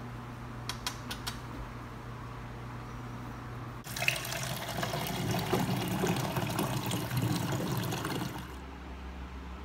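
Water pouring from a water cooler's push tap into a cup, starting about four seconds in and stopping near the end. Before it, a low steady hum with a few light clicks about a second in.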